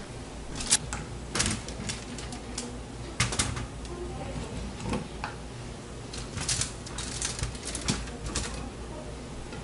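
Potato pieces being set down one by one around a leg of lamb, giving irregular light clicks and knocks.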